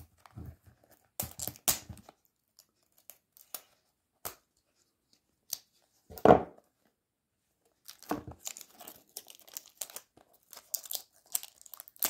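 A folding knife slitting the seal of a small cardboard box, then the box being opened: scattered scrapes and tearing of cardboard and paper, one loud thump about six seconds in, and steady crinkling of packaging from about eight seconds on as the tightly packed contents are worked out.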